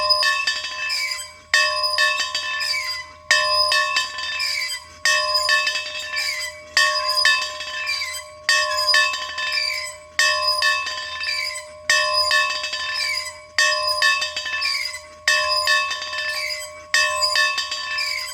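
A bell rung over and over in a steady rhythm, a sharp strike roughly every second and a half to two seconds. Each strike rings out with a clear tone and bright overtones that fade before the next one.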